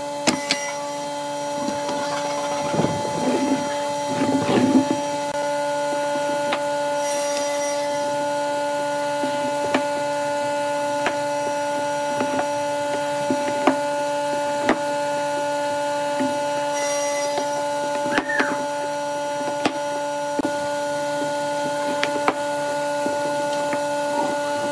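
Steady hum of a workshop machine's electric motor running, with light knocks and scraping of wooden pieces being handled and set down on a wooden workbench, busiest a few seconds in, then occasional single clicks.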